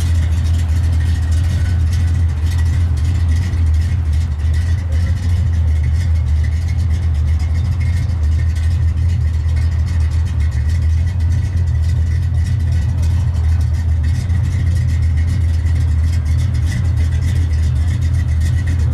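A car engine idling steadily: a deep, even rumble that does not rise or fall.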